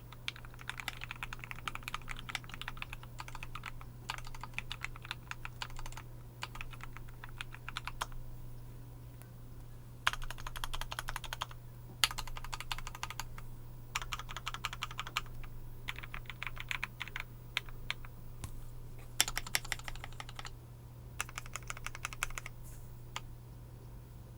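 Typing on a KBDFANS D65 mechanical keyboard with a brass plate and Tealios V2 linear switches: quick runs of key clacks in bursts of a second or two, with short pauses between runs.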